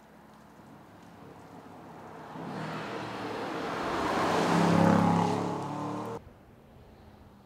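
Aston Martin DBX 707's twin-turbo V8 approaching and growing louder, loudest about five seconds in, then cut off abruptly about six seconds in.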